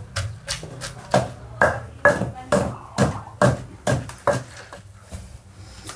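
Long wooden pestle pounding garlic and shallots in a stone mortar, about two strokes a second, stopping about four and a half seconds in.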